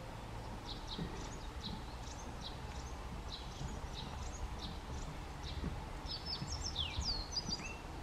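Yellow bunting singing: a run of short, high notes at about two or three a second, then a quicker, more varied phrase with a downward slide near the end, over a low background rumble.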